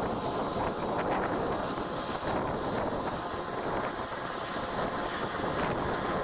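Combine harvester running steadily, a dense unbroken machine noise with a faint high whine.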